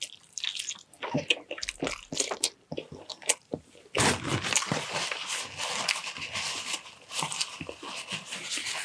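Close-up eating sounds: a person biting and chewing, with scattered sharp mouth clicks at first, then from about four seconds a denser, continuous crunching.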